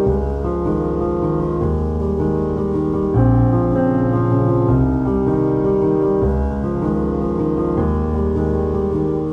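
Background music: a slow piano piece of sustained chords over a low bass, the chord changing about every second and a half.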